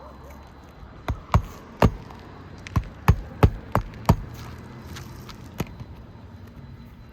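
Roofing nails being driven into a replacement asphalt shingle, heard as sharp strikes: three quick ones, then a run of five about a third of a second apart, and one faint strike later.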